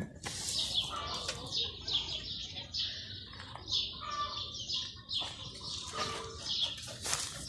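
Small birds chirping, many short quick chirps one after another.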